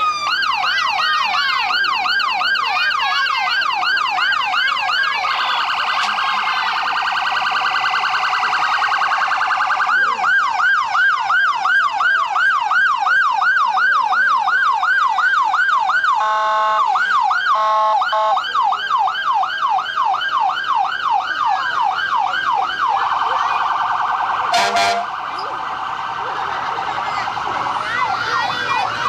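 Electronic sirens of passing police cars and a fire engine, switching between a fast yelp of about three sweeps a second and a quicker, shriller warble. A few short horn blasts come about halfway through.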